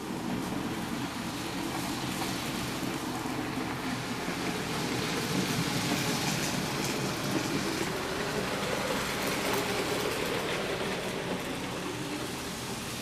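HO scale model train running along the track past the microphone, a rattling rumble of wheels on rails that grows louder in the middle and eases off near the end.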